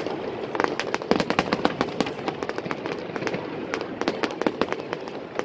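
A fireworks display: aerial shells bursting with many sharp bangs and crackles in quick, irregular succession over a continuous rumble.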